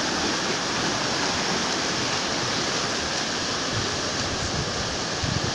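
Steady rushing of floodwater pouring across a flooded road from an overflowing lagoon.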